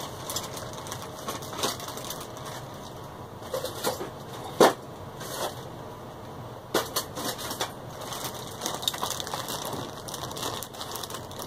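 Rummaging among small parts while searching for a bobbin case: irregular clicks and knocks of objects being handled and moved, with one sharp knock about four and a half seconds in.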